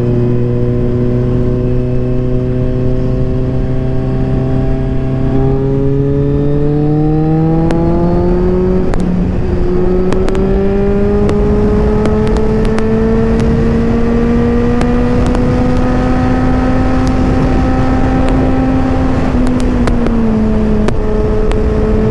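Kawasaki Z1000's inline-four engine running under way, with steady wind noise. The engine note holds steady at first, rises as the bike speeds up about a third of the way in, keeps climbing slowly, then dips briefly near the end.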